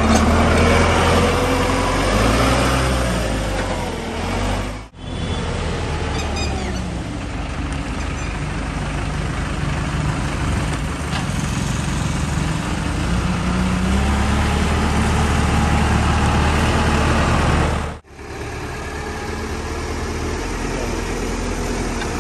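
Sonalika tractor's diesel engine running, its pitch rising and falling as the revs change. The sound drops out sharply twice, about five seconds in and again near the end.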